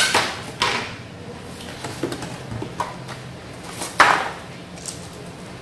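Handling of packaging while unpacking: a sharp knock at the start, then several brief rustles and scrapes, the loudest about four seconds in.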